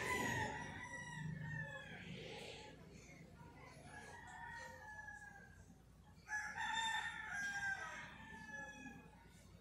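Rooster crowing three times: one crow trailing off at the start, a fainter one about four seconds in, and the loudest a little after six seconds in, each a long held call that drops in pitch at the end.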